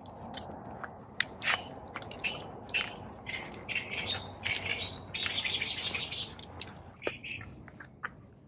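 Wild birds calling from a tidal flat: many short, high calls in quick succession, thickest in the middle stretch, over a faint steady high tone.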